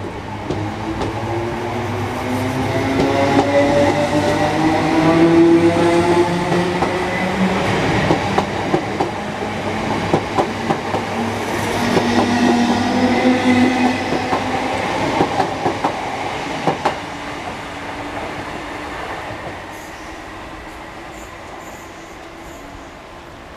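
A Greater Anglia electric multiple unit passing at close range: its whine rises in pitch, then the wheels click rhythmically over rail joints. The sound fades away over the last few seconds as the train moves off.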